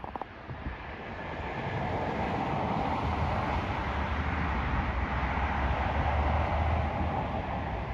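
Jet airliner engines at high power during a departure: a steady rushing noise with a low rumble. It swells over the first two seconds and stays loud, peaking near the end.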